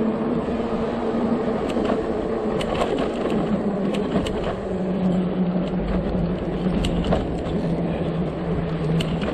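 Running noise of a vehicle on the move: a steady low hum over rumble, with scattered sharp clicks and a deeper rumble joining about halfway through.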